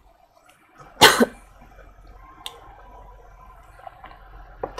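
A woman coughs once, briefly, about a second in, followed by quiet room noise with a few faint clicks.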